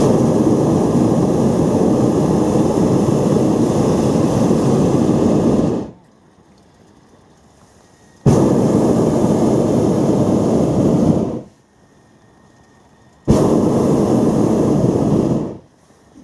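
Hot-air balloon's propane burner firing in three blasts, about six, three and two seconds long, each starting and cutting off sharply.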